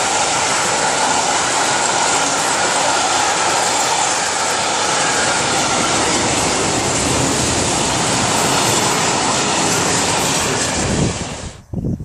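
Freight train of tank wagons rolling past: a steady, loud noise of wheels running on the rails. It cuts off suddenly near the end.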